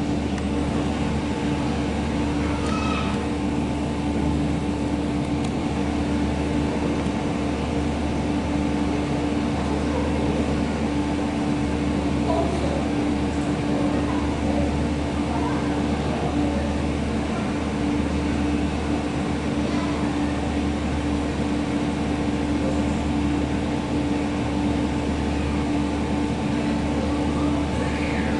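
Steady machine hum with a constant tone, unchanging throughout.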